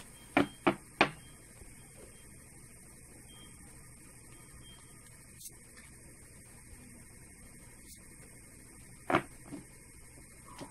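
A tarot deck handled and knocked on a cloth-covered table: three quick knocks in the first second and a half and one more near the end, over a faint steady electrical hum.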